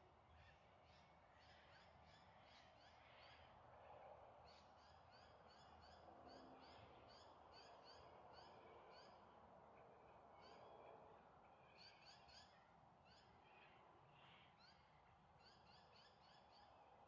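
Faint dusk chorus of birds calling: many short, quick high chirps in runs, over a soft steady background hiss.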